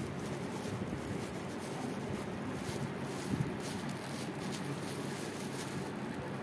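Plastic bag and disposable plastic gloves crinkling faintly as they are squeezed by hand, over a steady low background rumble.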